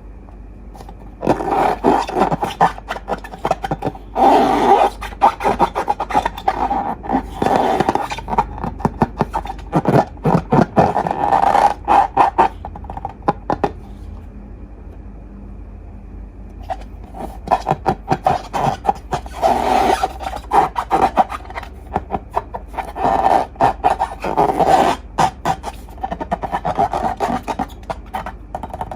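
Slime being mixed and worked by hand, a dense run of sticky clicks and scrapes. It comes in two long stretches with a pause of a few seconds in the middle.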